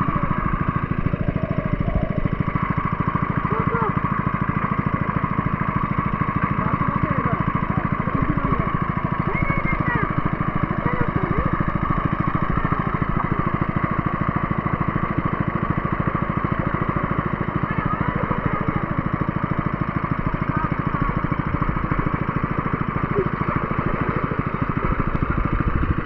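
A small engine running steadily at an even speed, with faint voices in the background.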